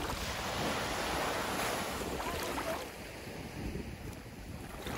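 Small waves washing onto a sandy beach, with wind on the microphone. The wash is louder for the first three seconds and eases off about three seconds in.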